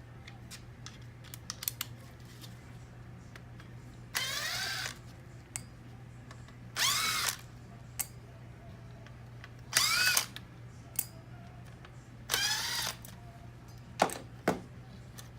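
Small power driver backing out four small Torx screws, running in four short bursts about three seconds apart, each whining up in pitch and back down. Light clicks between the bursts and two sharper taps near the end.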